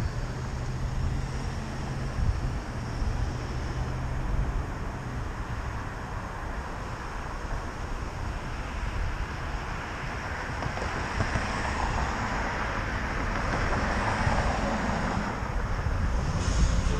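Road traffic noise with wind rumbling on the microphone. A low engine hum runs through the first five seconds, and a broader swell of passing-vehicle noise builds in the second half.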